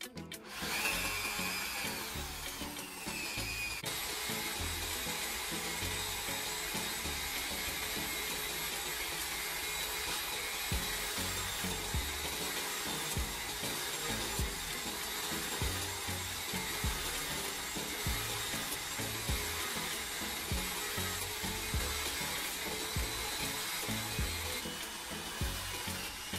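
A power tool's motor running steadily with a high whine, with irregular low knocks throughout.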